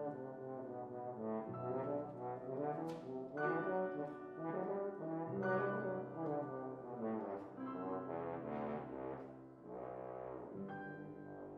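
French horn playing a moving melodic line down into its lower-middle range, accompanied by piano.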